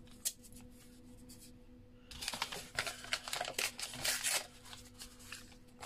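Crumpled brown packing paper being torn by hand into small pieces: a couple of seconds of ripping and rustling that start about two seconds in.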